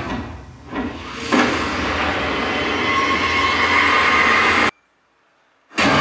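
Action movie-trailer sound effects played back through a Sony HT-IV300 5.1-channel home theater system: thick rumbling, hissing noise with a sharp hit about a second in. Near the end it cuts off suddenly for about a second, then comes back.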